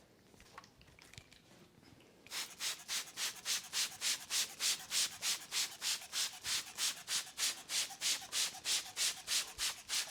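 Hands rubbing briskly back and forth in a head massage, a steady run of even rubbing strokes at a little under four a second. It starts about two seconds in and stops just at the end.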